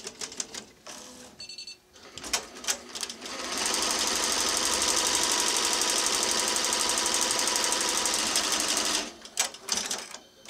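Tajima multi-needle embroidery machine stitching lettering: a loud, fast, even run of stitching from about three and a half seconds in until about nine seconds, with scattered clicks and knocks from the machine before and after it and a short tone about a second and a half in.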